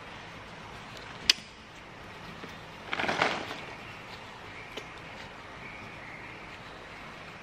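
A cloth towel rustling as it is rubbed over a wet baby monkey, in a brief flurry about three seconds in, with a single sharp tap about a second in.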